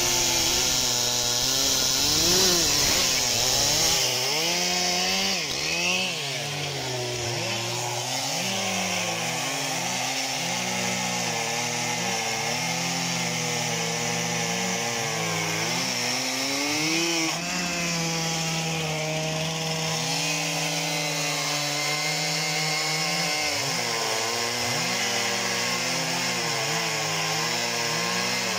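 Stihl MS 362 two-stroke chainsaw running at high revs while cutting through logs, its engine note dipping and rising again and again as the chain bites into the wood and frees up.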